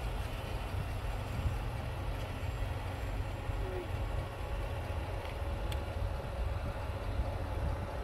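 Wind buffeting the microphone: a steady low rumble, with a faint steady hum under it and a single short click about six seconds in.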